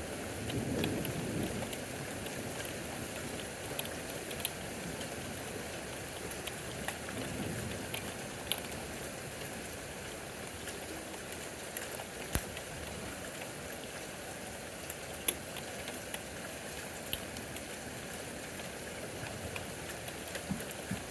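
Steady rain from a thunderstorm, with irregular sharp taps of drops striking a nearby surface.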